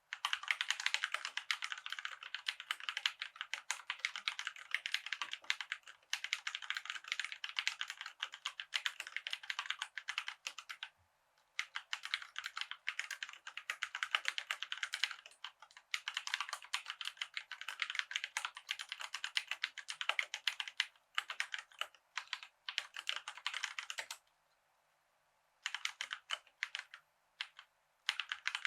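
Fast typing on a COX CK87 mechanical keyboard with Gateron brown switches: dense runs of key clicks broken by short pauses, with a longer stop of about a second and a half about 24 seconds in.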